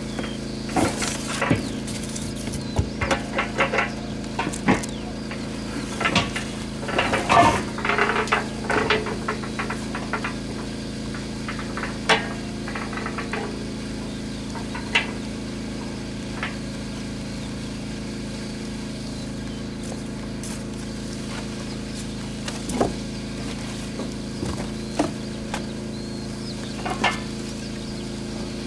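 Scattered clicks, knocks and rattles of parts being handled, busiest in the first half and sparse later, over a steady background hum.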